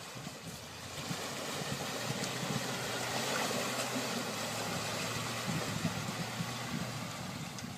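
A vehicle engine running with a steady low hum, under a rushing noise that swells about three seconds in and dies away toward the end.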